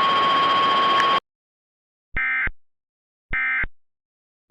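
A hiss with a steady high whine cuts off suddenly about a second in. After a pause come short identical bursts of Emergency Alert System SAME data tones, the End of Message code that closes the alert: two bursts about a second apart, and a third starting at the very end.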